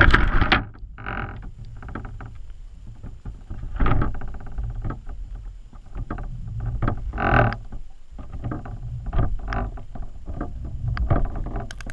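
Underwater camera housing inside a crab trap being jerked off the bottom and hauled up: a sudden loud jolt, then uneven rushing water, rumbling and bumping with several louder surges.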